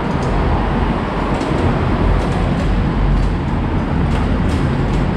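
Steady, loud rumble of vehicle noise around the station, with a few faint light ticks.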